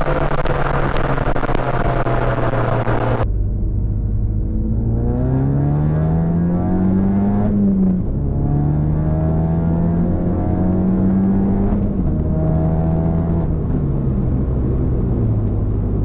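2017 Ford Focus RS turbocharged 2.3-litre four-cylinder running through a Borla turbo-back exhaust (high-flow catted downpipe and S-Type cat-back). For the first three seconds it is heard from outside the car with wind and road noise crackling on the microphone. From inside the cabin the engine drone then climbs in pitch under acceleration, drops twice as it shifts up, and eases down to a steady cruise near the end.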